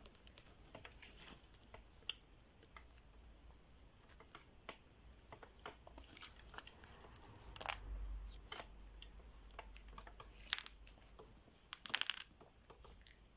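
Faint, scattered small clicks and crinkles of hands handling slime and its small decorations, with a few busier crinkly patches midway and near the end.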